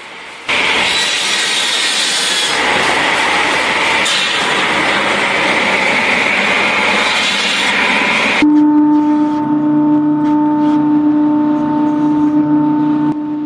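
Wood-processing machinery running loud: a dense grinding, shredding noise for about eight seconds, then an abrupt change to a steady droning hum with a fixed pitch.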